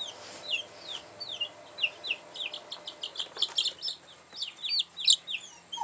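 Two-week-old black Australorp chicks peeping in a brooder: short, high, falling peeps, several a second, coming quicker from about halfway through. This is the repeated peeping of chicks that their keeper says are stressed after being moved.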